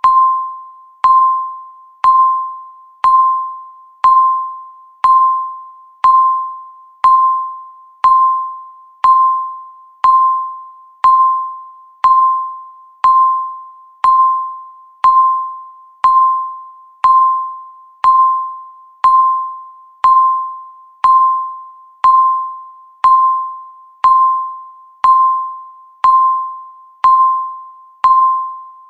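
Countdown timer beeping once a second: each beep is a single pitched electronic tone that starts sharply and fades away before the next one.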